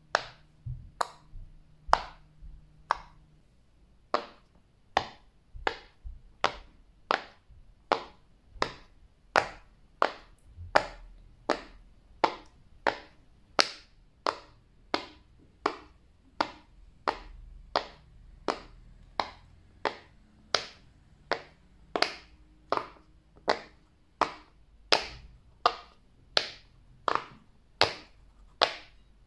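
Fidget toy clicking at a steady pace, about one and a half sharp pops a second, with no break.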